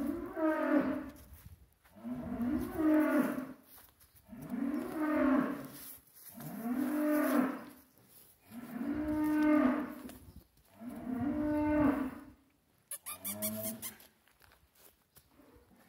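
A young bull mooing again and again: about seven long moos at one every two seconds, the last shorter and fainter.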